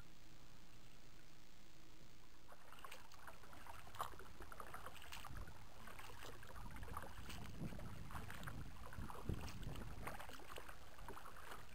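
Water lapping and trickling around a kayak, with light knocks against the hull and one sharper knock about four seconds in; before that, only a faint low hum.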